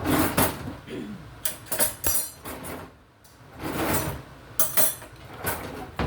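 Household handling noise: a series of short clatters and knocks, with a brief hush about halfway through.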